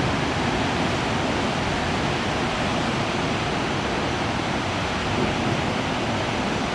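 Rockaway River rushing steadily, running high and raging after heavy rainstorms.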